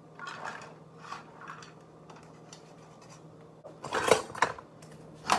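Kitchen handling noise: a bendy plastic sheet rustling and scraping as food is worked off it. A few louder clattering knocks of kitchenware follow about four seconds in and again near the end.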